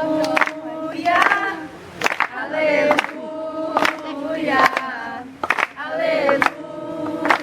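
A group of voices singing a Portuguese gospel chorus together, with hand claps keeping time about once a second.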